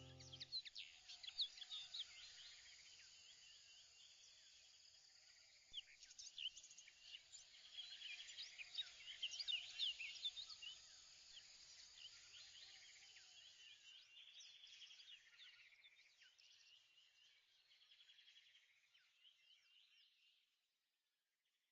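Faint chorus of many birds chirping, busiest in the middle and fading out near the end.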